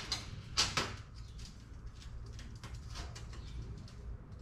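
Flat 16-gauge steel cut-out pieces sliding and clinking on a steel worktable as they are picked up and bent by hand: a short scrape about half a second in, then scattered light clicks and taps. A steady low hum runs underneath.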